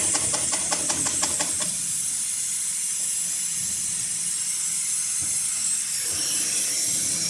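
Heavy-duty triple-feed walking-foot sewing machine stitching thick polyester or nylon sling webbing, ticking evenly at about seven stitches a second, then stopping about a second and a half in. A steady high hiss continues underneath throughout.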